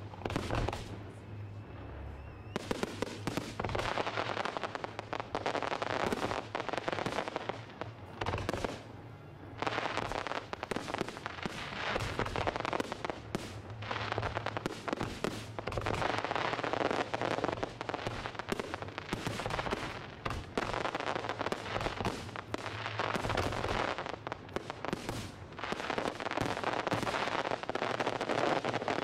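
Aerial fireworks display: a dense, almost continuous barrage of shell bursts and crackling. There are brief lulls about two seconds and nine seconds in.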